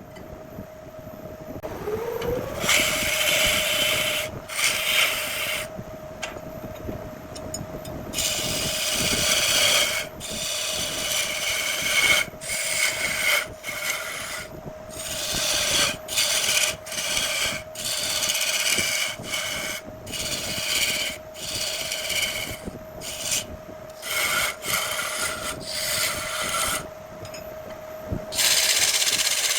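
Wood lathe spinning up about two seconds in, then running with a steady whine while a turning tool cuts the spinning jackfruit wood in repeated scraping passes.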